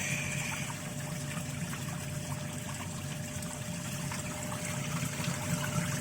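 Samsung top-loading washing machine in its wash cycle with the tub full of water: a steady motor hum and water swishing as the washer keeps turning in one direction only, like a spin, instead of agitating back and forth. This is the fault the owner is showing.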